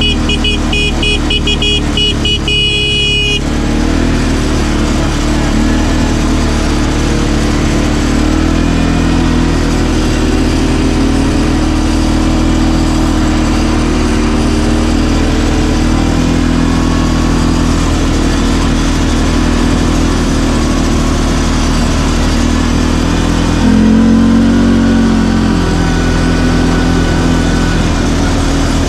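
CFMoto ATV engine running while riding on a dirt track, its pitch rising and falling with the throttle and briefly louder near the end. During the first three seconds a fast-pulsing high beep sounds over the engine.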